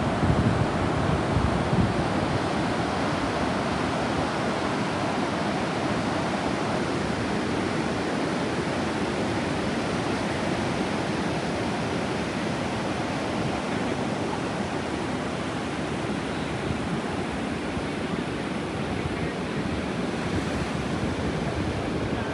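Steady wash of sea surf breaking on a beach, with wind buffeting the microphone.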